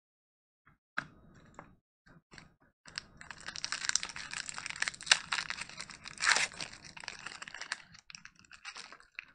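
Foil wrapper of a Pokémon card booster pack crinkling in the hands and being torn open. A few separate clicks come in the first couple of seconds, then steady crinkling and tearing, loudest about five and six seconds in, thinning out near the end.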